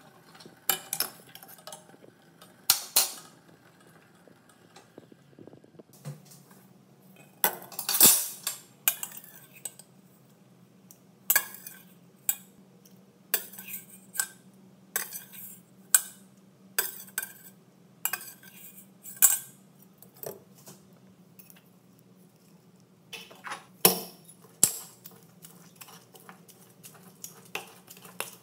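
Stainless steel cookware clanking and knocking: scattered sharp metal strikes, then a run of about one strike a second. Near the end a steel pestle taps and pounds in a small steel bowl.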